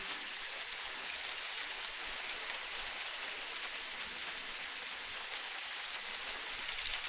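Steady, even hiss of water in an ambient sea soundscape, with a few faint ticks near the end.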